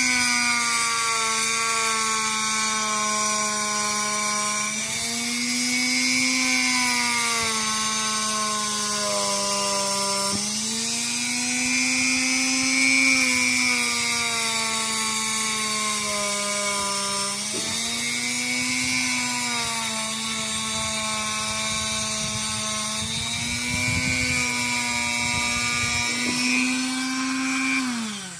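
Dremel-type rotary tool with a wire wheel running at high speed, cleaning corrosion off the knock sensor stud. Its whine dips in pitch each time the wheel is pressed to the work and recovers when eased off, and the tool is switched off and spins down at the very end.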